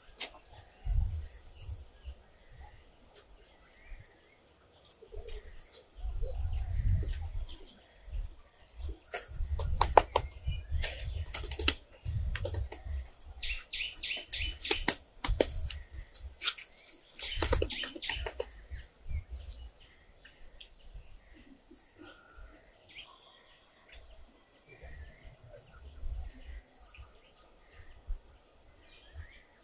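An insect droning steadily at one high pitch throughout. Clusters of sharp knocks and rattles come between about ten and eighteen seconds in, with bursts of low rumble on and off.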